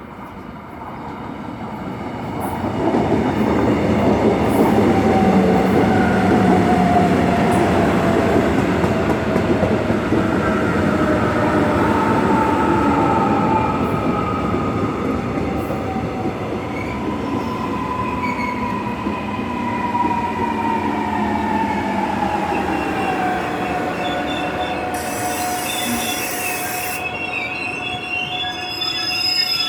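Electric commuter train pulling into a station and braking: rolling noise builds, then the brakes squeal in long whistling tones that slide slowly down in pitch as it slows. A short hiss comes near the end.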